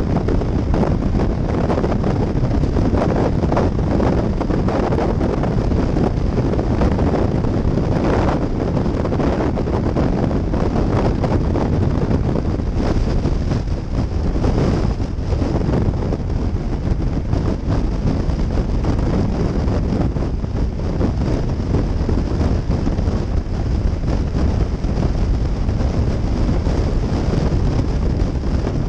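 Wind rushing and buffeting over the microphone of a motorcycle cruising at highway speed, a steady low roar with a couple of brief louder gusts, about 8 and 15 seconds in.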